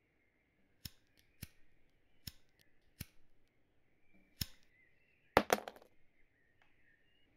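Hand-held cigarette lighter being struck over and over: five sharp clicks spaced about a second apart, then a louder quick run of clicks a little past halfway.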